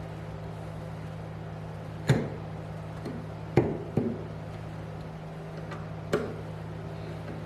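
Four sharp knocks, about two, three and a half, four and six seconds in, with a couple of fainter clicks, over a steady low electrical hum.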